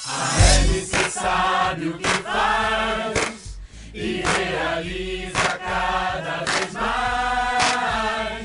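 A group of voices singing together to a song's music, with a sharp beat about once a second.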